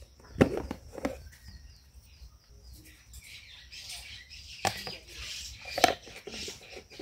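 A metal teaspoon clinking against the salt container and a plastic mixing bowl, four or so sharp taps, with a soft rustle as salt is scooped and tipped onto flour. A faint, steady, high-pitched chirping runs behind it.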